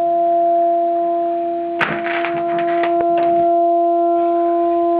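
An old hearse's horn sounding one continuous steady note, honking on its own and not letting up. A sharp click and a brief clatter come about two seconds in.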